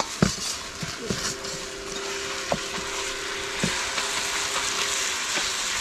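Food sizzling in a hot wok as it is stir-fried, with the cooking utensil knocking against the metal wok several times.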